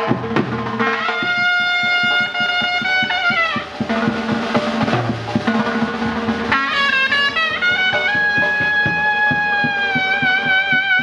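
Surnay, the Uzbek double-reed shawm, playing long held notes that bend down at their ends, with a quick ornamented run about two thirds in and a wavering trill on the last long note. Drums beat steadily underneath, carrying on alone during a short break in the surnay's notes.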